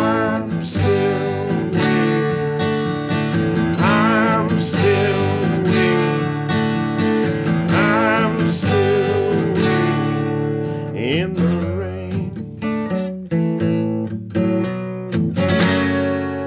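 Acoustic guitar strumming chords in a song's closing instrumental, with a wavering melody line above it; it finishes on a last strummed chord left ringing near the end.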